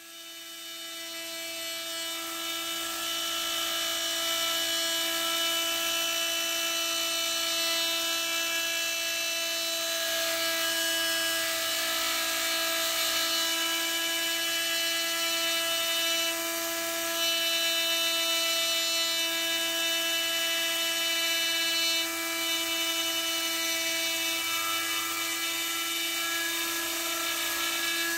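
Cheap rotary tool running at a steady high-pitched whine while its bit cuts into a wooden block as the spindle of a home-built CNC mill. The sound fades in over the first few seconds, grows louder about 17 seconds in and eases back about five seconds later.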